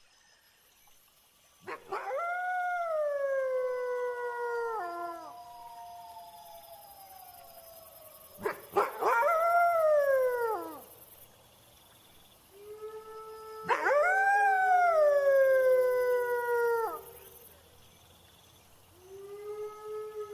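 Wolf howling: four long, drawn-out howls, each rising quickly and then sliding slowly down in pitch, the last one fainter. A faint steady high hiss of crickets runs underneath.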